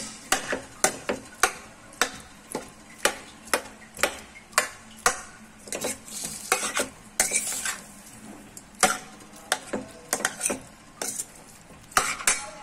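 A steel spoon stirring diced potatoes in a stainless steel pan, clinking and scraping against the metal about twice a second, with a longer scrape around the middle. A light sizzle of the potatoes frying in oil runs underneath.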